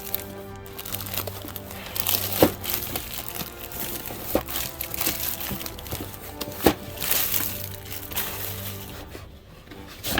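Background music with steady sustained notes, over the crinkling of packaging and a few sharp clicks as toy diorama pieces are unpacked from their box.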